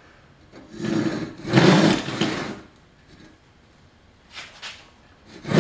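Freshly sharpened Disston D8 rip saw cutting a board by hand: two strokes about a second in, a fainter stroke later, and another starting near the end.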